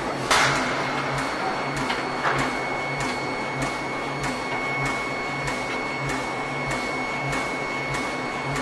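Forging-shop machinery running: a steady high whine over a pulsing hum, with a light regular knock about one and a half times a second. A louder metallic hit comes just after the start.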